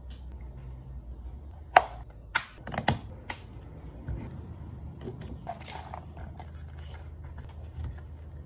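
Plastic lids being fitted to iced drinks: a quick series of sharp plastic clicks and snaps about two to three and a half seconds in, then softer knocks of cups and a bottle being handled and set on the counter.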